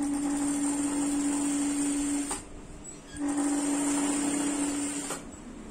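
Electric sewing machine running in two stitching runs of about two seconds each, with a short stop between them, its motor giving a steady hum.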